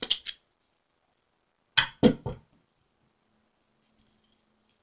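Tarot cards being handled: a few quick card snaps at the start, then a louder burst of several sharp snaps about two seconds in.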